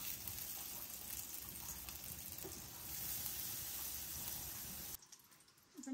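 Butter sizzling as it melts in a hot pan, a steady crackling hiss that cuts off suddenly about five seconds in.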